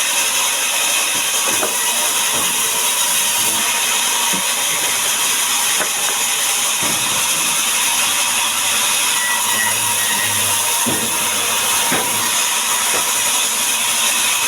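Power saw running steadily while cutting timber: a loud, even machine noise with a thin steady tone and a few small ticks.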